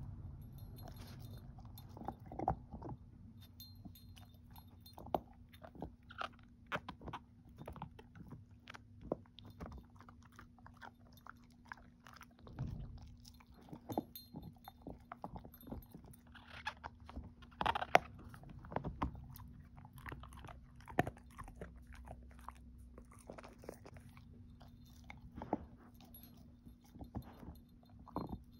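Dog gnawing and crunching on a hard "everlasting" chew treat: irregular crunches and clicks of teeth on the treat, loudest in a cluster about eighteen seconds in, over a faint steady hum.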